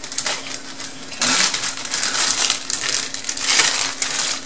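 Plastic bag crinkling and rustling in repeated bursts from about a second in, as ground pork is emptied from it into a steel mixing bowl.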